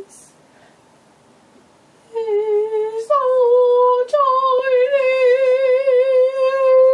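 A teenage boy singing in a high voice: after about two seconds of quiet, two short notes and then one long note held with a slight waver.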